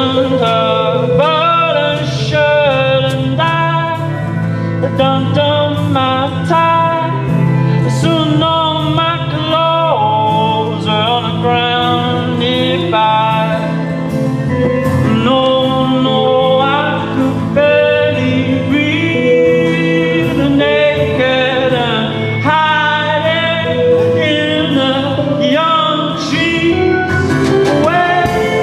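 A man singing a song live over strummed acoustic guitar, with a steady rhythm of strokes.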